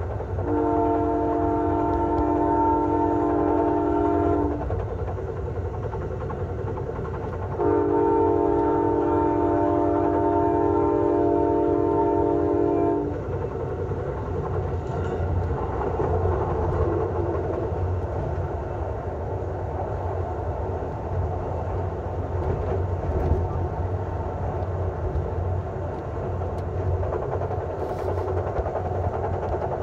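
California Zephyr locomotive's chord air horn sounding two long blasts, the first about four seconds and the second about five seconds, heard from inside a passenger car. After the second blast only the train's steady low running rumble remains.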